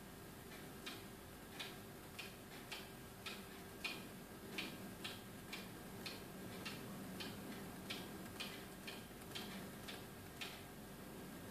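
Faint steady hum from a small competition robot's drive motors during a motor control test, with sharp ticks from its drivetrain at a fairly even pace of nearly two a second.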